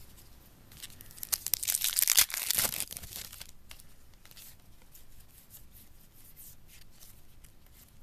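Football card pack wrapper being torn open and crinkled, a dense crackling that is loudest about two seconds in, followed by lighter rustling of the wrapper and cards.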